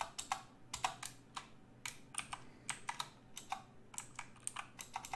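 Computer keyboard keys being pressed: quick, irregular key clicks, several a second, as the letters of a word are deleted and a new word is typed.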